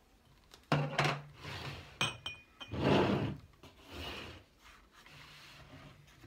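Small glass jar being opened, its lid twisted off and set down on the table: a few sharp glass clinks, one about two seconds in with a short ringing tone, and a spell of rubbing and scraping around three seconds in.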